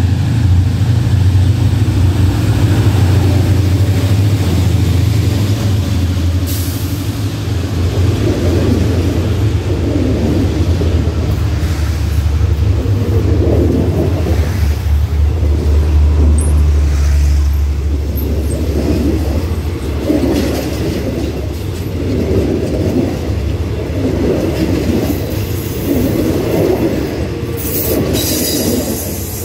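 Hitachi diesel-electric locomotive 4519 passing at a level crossing, its engine giving a deep, steady drone. After that the passenger carriages roll by, their wheels sounding over the rails in a regular pulse, about one every two seconds.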